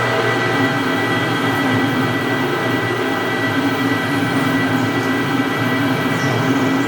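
Precision Matthews 1640 lathe running steadily while a large drill bit bores into a cold rolled steel workpiece. There is a constant gear whine, and a wavering mid-pitched tone comes from the cutting.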